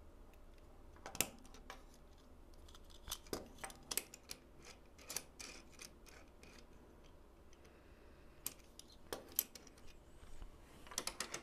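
Scattered sharp clicks and snaps of small plastic Playmobil parts being handled and pressed into place, as wheels are fitted under a toy workbench. They come in a few clusters, the loudest about a second in.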